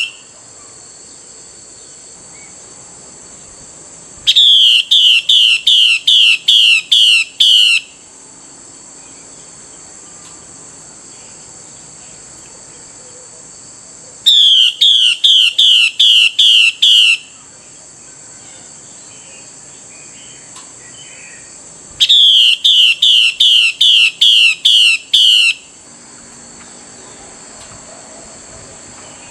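Female Chinese hwamei (Chinese melodious laughingthrush) giving its harsh 'xùy' call to a male: three bouts of about eight to nine rapid, sharp, repeated notes, about three a second, with long pauses between.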